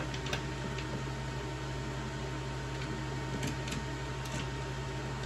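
Steady background hum and hiss, with a few light clicks and taps of a black plastic chair part being handled and fitted to the underside of the seat. The clicks fall about a third of a second in and in a small cluster around four seconds in.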